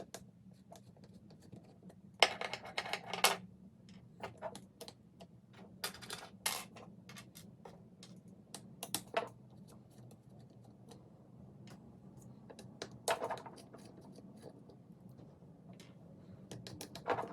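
Small robot parts and tools being handled on a work surface: scattered clicks and taps, with a few short scraping sounds.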